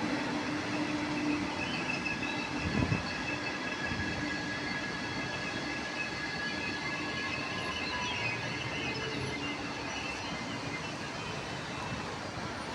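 Train running along the track: a steady rumble with several high whining tones held over it and one tone sliding slowly in pitch midway.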